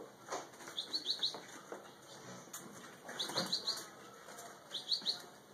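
Small caged songbirds chirping in three short, quick runs of three or four high notes, with soft rustles and wing flutters from birds moving in wire cages.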